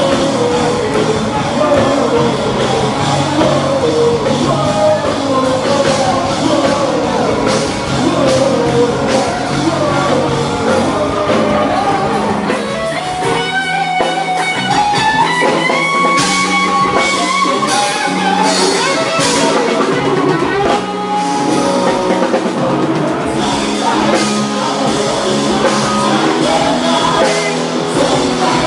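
Live rock band playing, with electric guitar, drum kit and a singer, loud and steady. About halfway the low end drops out briefly while a melody line climbs in steps, then the full band comes back in.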